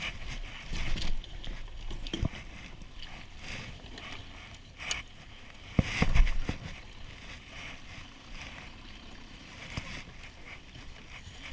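Water sloshing against a jon boat, with irregular knocks and a louder thump about six seconds in.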